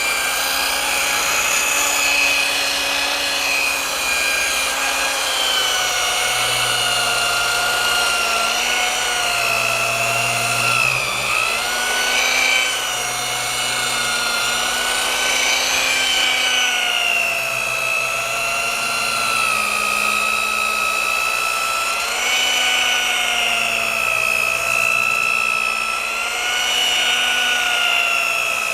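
Rotary polisher running with a wool compounding pad on paint: a steady motor whine that drifts slowly up and down in pitch.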